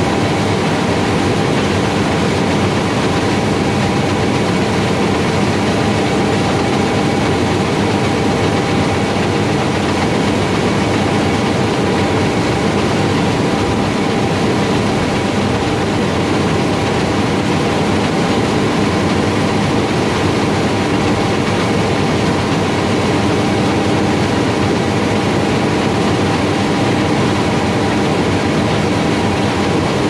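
Steady machinery noise: a dense, even rumble with a few faint constant tones.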